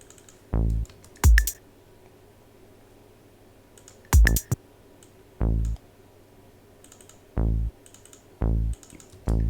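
Single electronic notes auditioned one at a time with gaps between: short Moog-style synth bass notes and two sharp electronic kick-drum hits whose pitch drops quickly, with faint clicking in the pauses.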